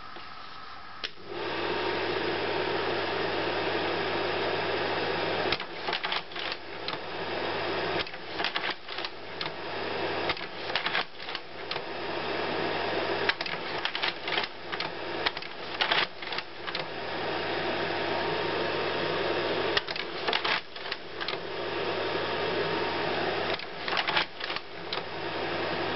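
Kindermann autofocus slide projector switched on: its cooling fan starts with a steady hum about a second in. From about five seconds in, the slide-changing mechanism, worked from the wired remote, clatters through several cycles in bursts of clicks.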